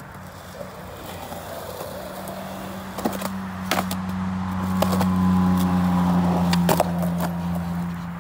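Skateboard on rough concrete, with several sharp clacks of the board and wheels. Under them runs a steady low hum that swells towards the middle.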